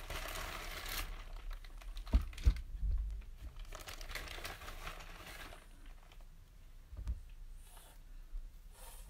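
Rustling and crinkling of handling, with a lump of stoneware clay put down on the paper-towel-covered bench with a couple of dull thuds about two seconds in; more crinkling follows around four to five seconds, and a single soft thud near the end.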